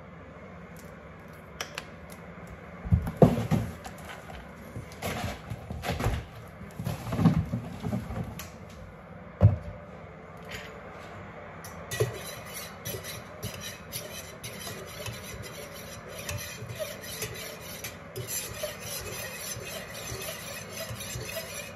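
A few knocks and clatters of kitchen items on a counter, then, from about halfway through, a metal spoon stirring in a stainless steel mug, scraping and clinking steadily against its sides.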